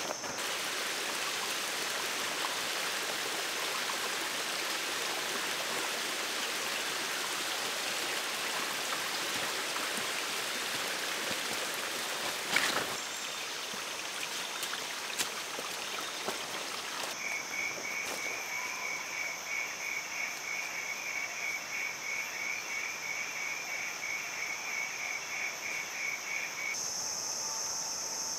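Tropical forest ambience: a steady high insect buzz, with an even rushing hiss through the first half. From about two thirds of the way in, an animal call repeats rapidly and evenly, about three pulses a second, for some ten seconds.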